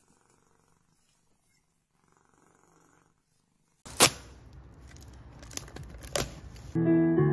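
A tabby cat purring close to the microphone, with a sharp click about a second after the purring starts and two softer taps after it. The first half is very faint, and plucked guitar music comes in near the end.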